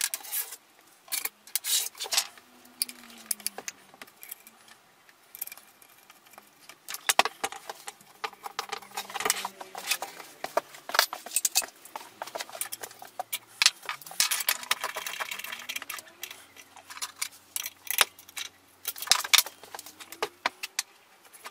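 Metal hand tools and engine parts clinking and scraping on a Mobylette moped engine as its bracket is fitted and a nut is turned down with a nut driver: irregular sharp clicks and clinks, with a longer stretch of scraping about two-thirds of the way through.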